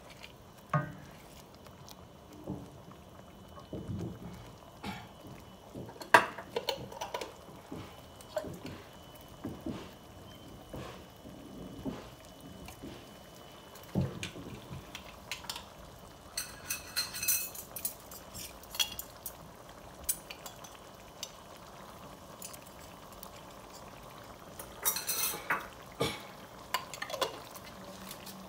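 Wooden spoon stirring and knocking against a stainless-steel pan of simmering spicy butter sauce, over a faint bubbling. Scattered clinks and knocks of spice jars, with short bursts of rattling about 17 and 25 seconds in.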